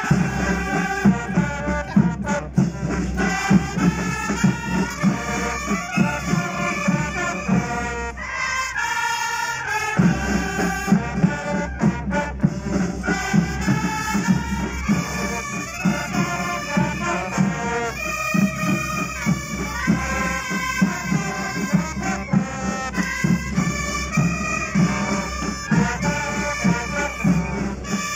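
Brass marching band with sousaphones and drums playing a tune over a steady drum beat. The drums drop out for about a second and a half, a little past eight seconds in, then come back.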